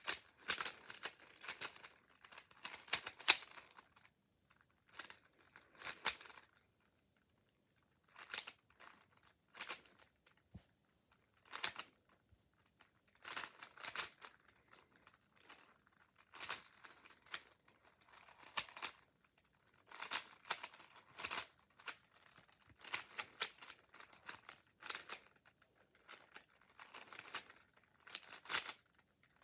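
A 3x3 Rubik's Cube being turned by hand: quick runs of plastic clicks and clacks as the layers are rotated, in short bursts with brief pauses between them.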